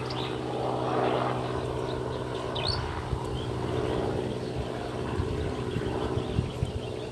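An engine running steadily at a constant speed, with a short high chirp about two and a half seconds in.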